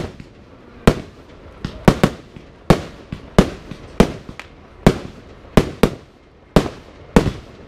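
Fireworks going off in quick succession: about a dozen sharp bangs, one every half second to second, as shells burst in white crackling stars.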